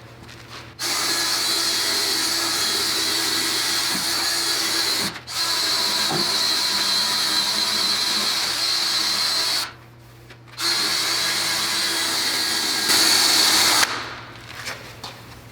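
A power-tool wire wheel spinning against the live edge of a black walnut slab, scrubbing off the last bark and loose wood so the edge is clean for sealing and epoxy. It runs steadily in three stretches, stopping briefly about five and ten seconds in, and winds down near the end.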